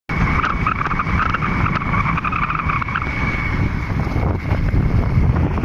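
Heavy wind buffeting the microphone while riding along an open road. A steady high-pitched buzz runs over it and stops about five seconds in.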